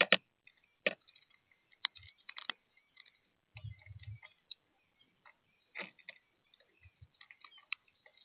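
Irregular sharp clicks and taps, with a few dull low thumps around the middle, of birds pecking seed and shifting about on a feeder.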